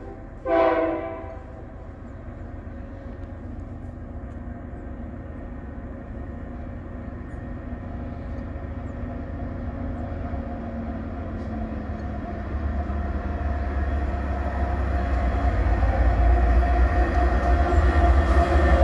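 Diesel-electric freight locomotive sounding its horn in one blast of about a second, just after a short toot; then the locomotives' low engine rumble grows steadily louder as the train approaches.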